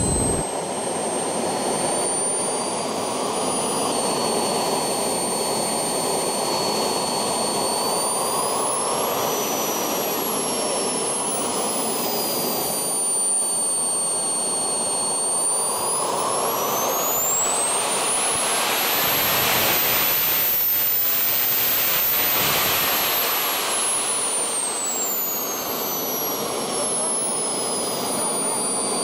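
Swiwin SW120B model turbine jet engine running: a steady rush of exhaust under a high turbine whine. The whine rises briefly about a third of the way in, then climbs steeply as the engine is throttled up toward full power and falls back again near the end.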